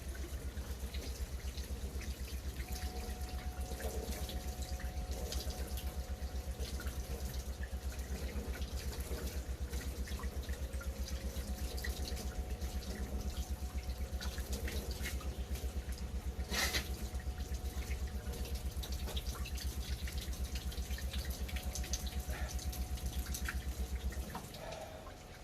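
Water running and dripping at a sink in a small room, over a fast, even low throb that stops about a second before the end.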